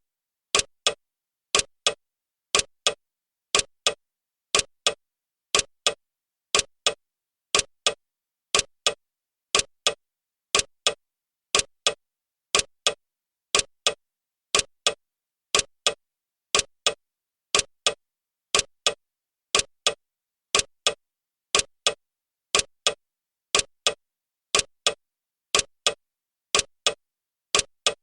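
Clock ticking, a quick double tick about once a second with silence between the ticks.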